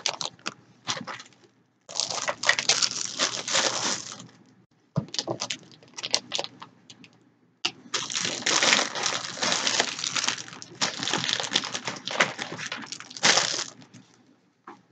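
Plastic wrappers and packaging crinkling and rustling as small items are handled and packed into a box, in two long bouts with small clicks and knocks between them.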